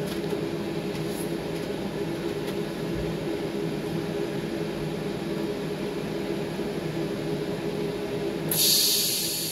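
Steady machine hum, then about a second before the end a TIG welding torch comes on over the silver bar with a sudden loud hiss that keeps going.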